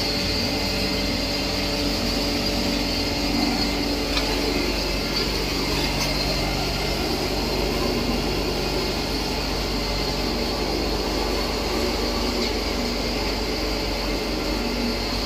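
Blower-type rice husk pulverizer running: a steady mechanical drone with several hum tones under a strong high hiss.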